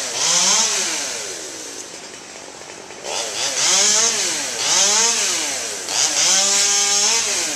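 Chainsaw engine revving up and dropping back three times, then held at high revs for about a second near the end before falling away.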